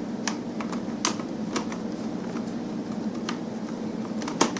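Irregular plastic clicks and clacks of a giant Rubik's cube's layers being twisted and snapping into line, over a steady low hum.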